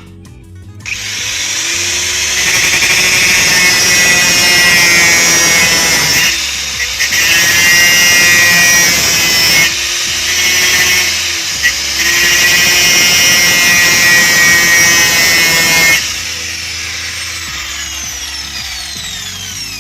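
Handheld power tool running and cutting into a seized washing-machine pulsator bush, its motor pitch dipping briefly a few times as it bites. It stops about three quarters of the way through and winds down.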